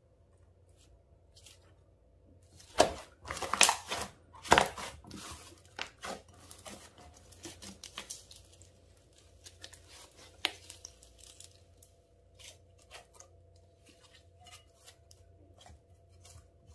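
Hands working a batch of slime: sticky crackling and tearing sounds, loudest about three to five seconds in, then thinning out into scattered small clicks and pops.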